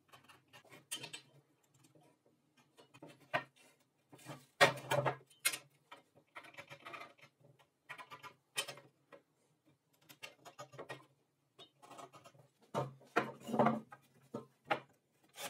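Hand-handling noises at a wooden workbench: plywood strips and a try square being set down, slid and knocked on the planks, heard as scattered taps, knocks and scrapes, with louder clatters around five seconds in and again near the end.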